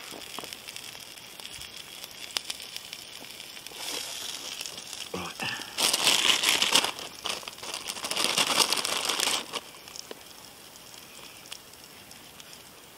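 A plastic packet being crinkled and handled in bursts of rustling from about four to nine and a half seconds in. Under it, a wood campfire crackles faintly with small pops.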